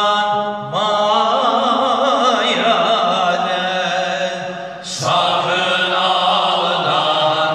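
Men singing an unaccompanied Turkish Sufi hymn (ilahi), one lead voice on a handheld microphone, in long held notes with wavering melismatic turns. The singing dips briefly about five seconds in, then the next phrase starts.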